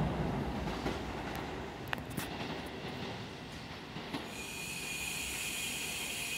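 Tobu commuter train pulling away round a curve, its running noise fading, with a few sharp wheel clicks over rail joints and points. From about four seconds in, a high, steady wheel squeal as it takes the curve.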